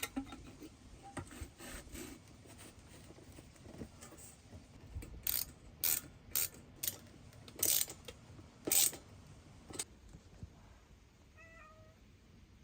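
A run of sharp clicks and knocks, loudest in the middle, from things being handled, then a short cat meow near the end.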